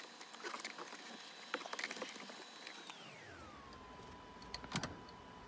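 Faint scattered clicks and rattles of plastic wiring-harness connectors and cable being handled by hand, with one sharper click near the end.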